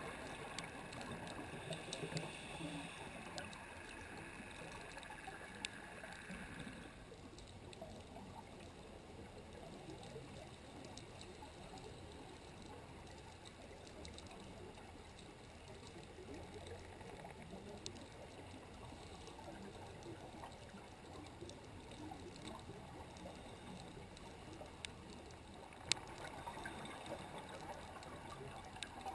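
Underwater ambient noise picked up by a camera in its housing on the seabed: a faint, even rushing hiss scattered with sharp little clicks. A thin steady whine sits over it for the first seven seconds and comes back near the end.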